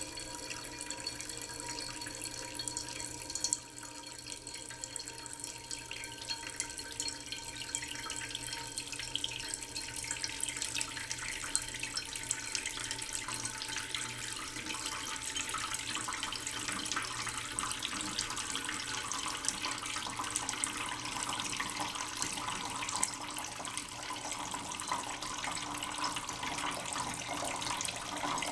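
Water running in a steady stream, like a tap filling a sink, with a faint tone that slowly drifts down in pitch and a splash that grows slightly brighter toward the end.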